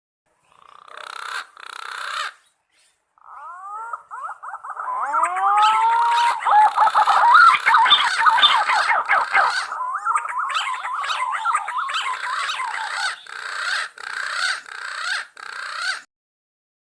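Punai (green pigeons) calling: many overlapping whistles that glide up and down, mixed with warbling notes. Two short bursts come first, then a dense run of calls that stops abruptly near the end.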